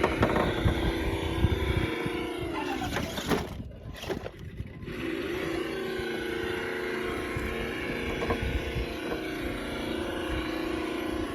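Simulated engine sound from a radio-control scale crawler's sound module, a steady engine note that winds down and drops away about three seconds in, then picks back up about five seconds in and runs steady.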